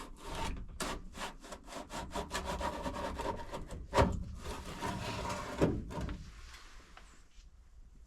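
Window of a hunting stand being worked open in its frame: a fast run of short scraping, rubbing strokes, with two louder knocks partway through, then it goes quiet.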